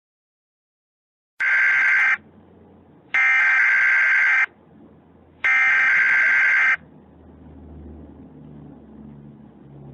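Emergency Alert System SAME header: three bursts of buzzy data tones, each about a second long with about a second's gap between them, encoding the alert that follows, a National Weather Service flash flood warning. After the third burst there is only a faint low hum.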